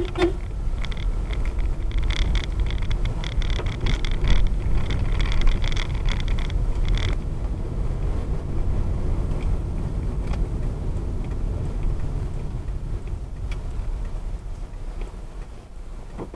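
Car driving, heard from inside the cabin: a steady low road and engine rumble with dense rattling over a rough, potholed dirt road. The rattling stops abruptly about seven seconds in, leaving a smoother, quieter rumble on a wet, muddy road.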